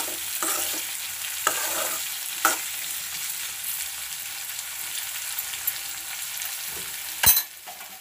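Chopped capsicum sizzling in oil alone, with no water added, in a metal kadai, stirred with a spoon that scrapes and taps against the pan a few times. A sharp clink comes near the end, after which the sizzle is fainter.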